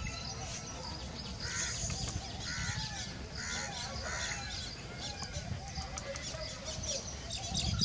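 Crows cawing, harsh calls repeated about once a second, over a steady low background rumble. A cluster of sharp high chirps or clicks comes near the end.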